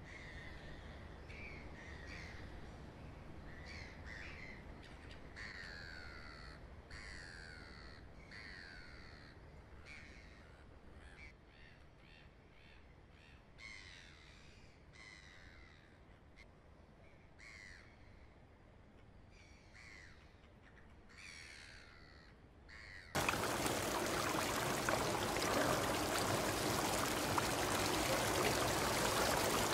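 Birds calling, a string of short falling cries over a soft outdoor ambience. About three-quarters of the way through it cuts suddenly to loud, steady running water, a fountain flowing into an indoor pool.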